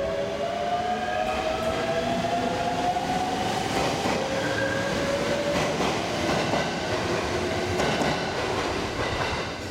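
KiHa 47 and KiHa 40 diesel railcars with their original DMF15HSA engines pulling away under power, the engines growling with a note that rises slowly in pitch. From about six seconds in, wheel clatter over the track mixes in as the train draws away.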